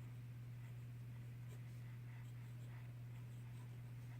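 Faint scratching of a Kaweco Perkeo fountain pen's nib writing on Rhodia notebook paper, over a steady low hum.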